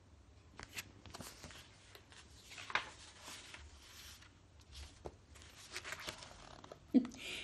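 Pages of a picture book being turned by hand: soft paper rustling and light handling clicks, loudest about three seconds in.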